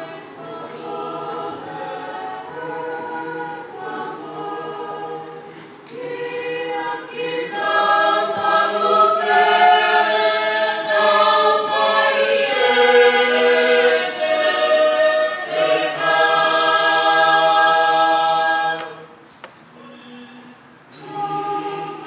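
Tongan church choir singing a hymn in several-part harmony, growing louder about seven seconds in, then dropping away briefly near the end before the voices come back in.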